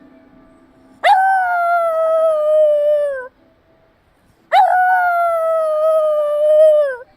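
Black Shiba Inu howling twice, a long call of about two seconds each time. Each howl starts with a quick rise, slowly falls in pitch and drops off at the end. She is howling in response to a chime.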